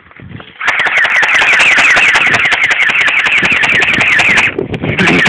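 Airsoft gun firing full-auto: a rapid, continuous rattle of shots with a whirring mechanism, starting under a second in and running about four seconds, then a brief break and a second burst near the end.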